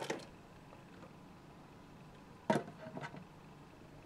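A single sharp knock of an object handled on a wooden tabletop about two and a half seconds in, followed by a few fainter handling noises; otherwise quiet room tone.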